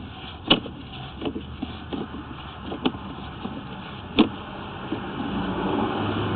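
Sewer inspection camera's push cable being fed down the drain line: a few sharp clicks and knocks over a steady low hum, the noise growing louder near the end.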